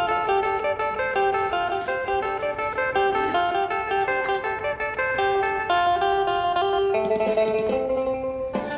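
Phin, the Isan plucked lute, playing a quick melody of single plucked notes, with lower notes joining in near the end.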